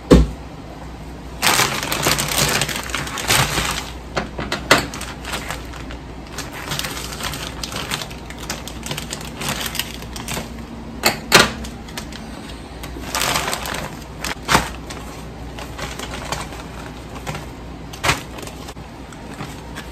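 Plastic bags crinkling and rustling as frozen breaded chicken cutlets are handled and put into vacuum-sealer bags, with scattered sharp clicks and knocks of the frozen pieces. A sharp thump right at the start.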